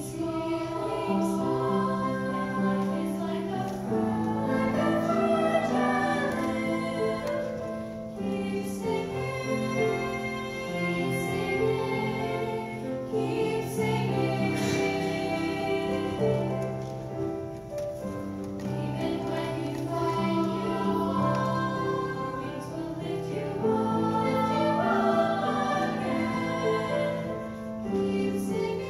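Young choir singing with piano accompaniment.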